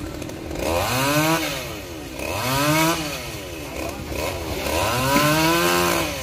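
Chainsaw revving up and dropping back three times.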